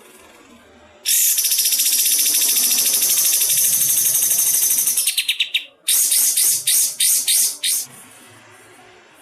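A songbird giving a very rapid, high-pitched trill of tightly packed notes for about four seconds, then several short bursts of the same trill. This is the rapid-fire 'tembakan' song used in masteran tracks to train cage birds.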